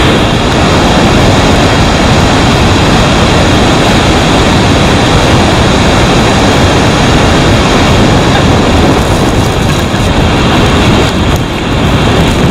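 Loud, steady roar of Iguazu Falls in flood: huge volumes of muddy water pouring over the falls and churning through the river below. The roar dips briefly near the end.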